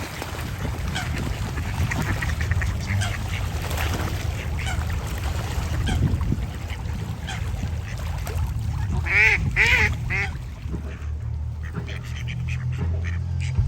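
Ducks calling and quacking on and off, with a run of three louder calls about nine to ten seconds in.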